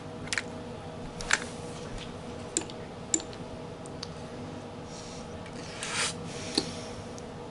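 Throttle body parts and hand tools clicking and clinking as the throttle body is taken apart by hand: several separate sharp clicks, with a short scrape about six seconds in.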